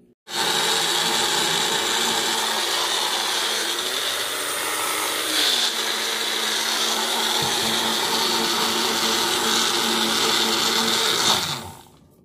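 A kitchen appliance's high-speed electric motor, switched on abruptly and running steadily for about eleven seconds. Its pitch sags briefly in the middle, and it winds down with a falling pitch near the end.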